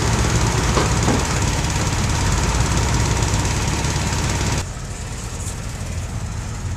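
Diesel engine of farm machinery running steadily. It becomes quieter about four and a half seconds in.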